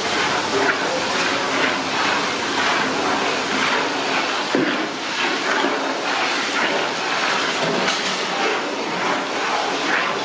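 Sliced onions frying in a large pot of hot oil: a steady sizzle full of crackles and pops, with a single knock about halfway through.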